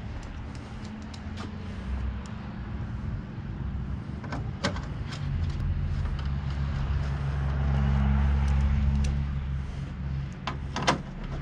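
A motor vehicle's engine hum that swells to its loudest a little past halfway and then eases off. A few sharp plastic clicks sound as push-in trim clips are pressed home, one a little before halfway and two close together near the end.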